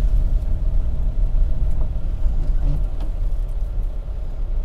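Steady low rumble of a car driving at low speed, heard from inside the cabin: road and engine noise with a faint steady hum.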